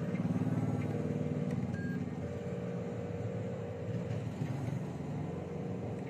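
Radio-controlled dump truck driving over dirt, its motor and drive running steadily.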